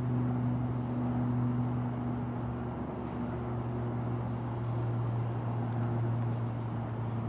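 Air conditioner running steadily: a constant low hum with fainter overtones over an even rush of fan noise.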